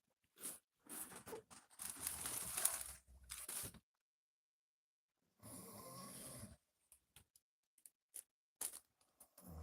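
Person snoring in their sleep: a long, noisy snore for about three and a half seconds, then after a pause a shorter snore with a low buzzing pitch, followed by a few faint clicks.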